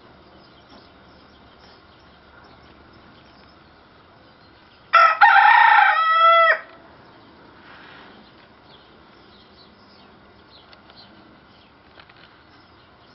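Bantam (dwarf) rooster crowing once, about five seconds in: a cock-a-doodle-doo of about a second and a half that ends in a drawn-out falling note.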